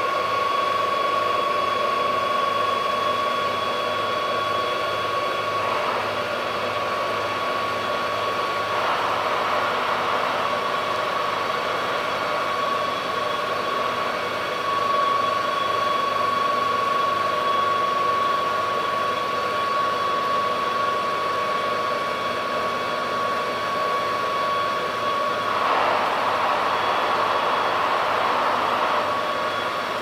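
A large car ferry's machinery running as the ship comes alongside: a steady mechanical drone with a constant high whine over a low, even throb. The hiss swells twice, once about a quarter of the way in and again near the end.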